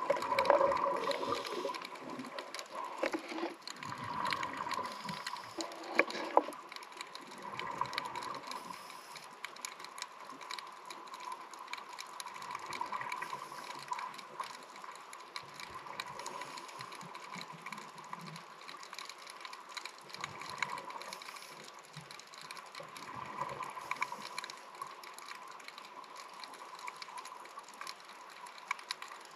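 Underwater ambience: a constant crackle of small clicks, with louder bubbling bursts of divers' exhaled regulator air in the first second and again about four to six seconds in.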